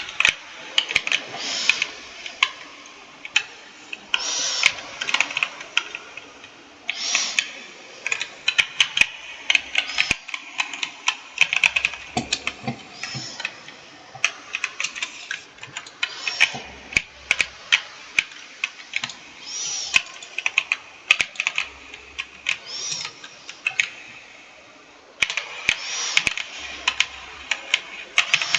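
Computer keyboard being typed on: quick runs of key clicks with short pauses, and a louder, longer stroke every few seconds.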